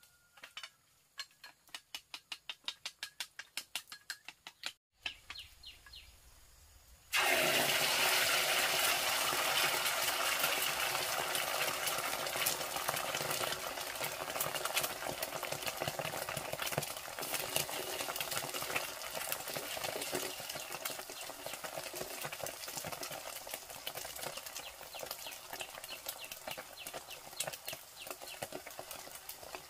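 A run of quick, even knocks, about five a second, for several seconds. Then, about seven seconds in, food goes into hot oil in a pan with a sudden loud sizzle that keeps frying steadily and slowly eases off.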